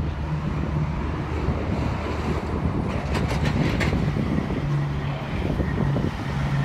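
Wind buffeting the microphone over the steady low hum of a motor vehicle's engine, with a short run of clicks about three seconds in.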